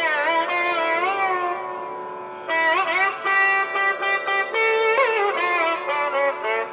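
Gayathri veena, a single-string veena, played solo with a slide: plucked notes that glide and bend in pitch. One note fades away about two seconds in before a fresh pluck starts the next phrase.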